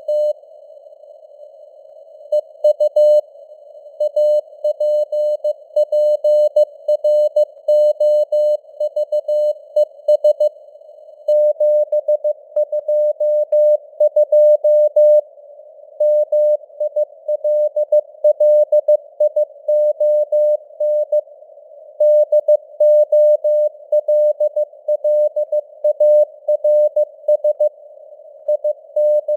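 Morse code (CW) at 15 words per minute: a single tone a little below 600 Hz keyed on and off in dots and dashes, with longer pauses between words, over a narrow band of simulated radio static.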